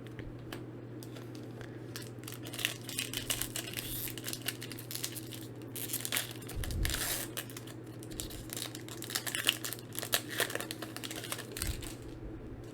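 Foil Pokémon booster pack wrapper crinkling and tearing as the pack is opened, with irregular crackles starting about two seconds in and stopping shortly before the end.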